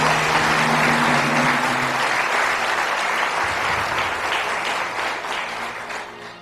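Studio audience applauding a correct answer on a TV quiz show. The show's music fades out under the applause in the first two seconds, and the clapping dies away near the end.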